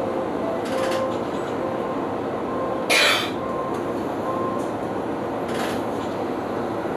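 Yamanote Line electric commuter train starting to pull away, heard from behind the driver's cab: a steady running noise with faint steady motor tones, and a short loud hiss about three seconds in, with two fainter ones.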